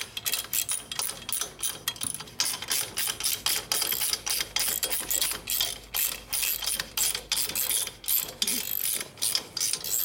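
Hand ratchet wrench clicking in rapid repeated strokes as cylinder head bolts are run down on a flathead V-twin motorcycle engine.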